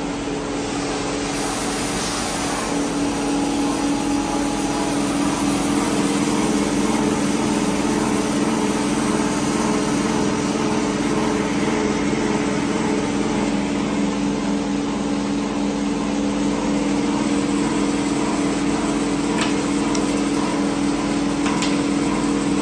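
CNC wire straightening machine running with a steady motor hum. A couple of faint clicks come near the end.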